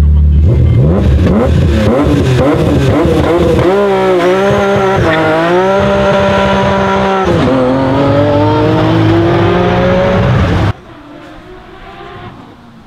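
Rally car engine at full throttle close by, its pitch climbing, dropping at gear changes and climbing again. About eleven seconds in it cuts off sharply to a much fainter engine sound.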